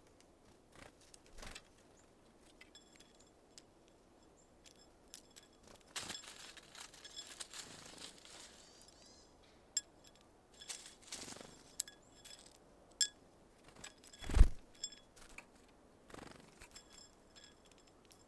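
Small birds at a seed feeder: scattered sharp taps and clicks, brief wing-flutters and rustles as birds come and go, and one loud thump about two-thirds of the way through.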